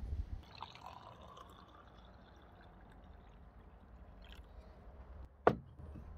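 A dark red drink pours from a clay jug into a drinking glass, its pitch rising over the first couple of seconds as the glass fills. Near the end there is a single sharp knock.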